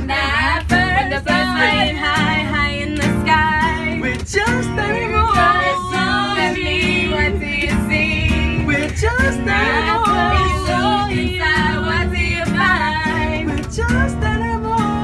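Acoustic guitar strummed as accompaniment to several voices singing together.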